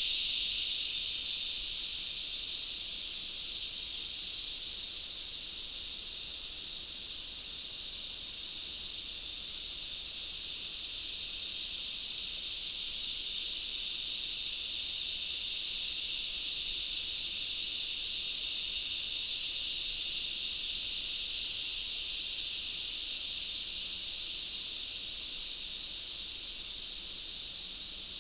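Dense chorus of jungle insects giving a steady, high-pitched drone without breaks, a little louder at the very start.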